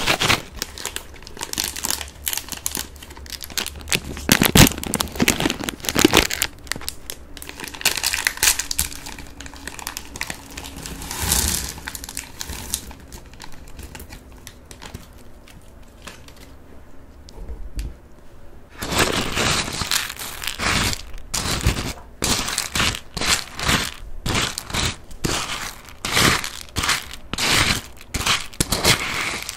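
Close-miked eating of Batdureong fried corn puffs: crinkling of the plastic snack bag and crisp crunching of the puffs, dense for the first twelve seconds or so. After a quieter stretch, about two-thirds of the way in, comes a steady run of crunchy chews about two a second.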